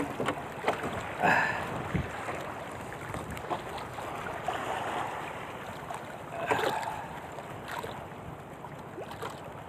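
Wind and choppy water lapping against a small wooden outrigger canoe, with wind buffeting the microphone. Scattered light knocks and rustles of handling come through, the loudest about a second in and again at about six and a half seconds.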